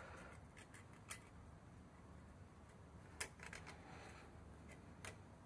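Near silence with a few faint, light clicks, about a second in, a little after three seconds with a short flurry after it, and near the end: a piston ring being pressed into a big-block Mopar 400 cylinder bore by hand to check its end gap.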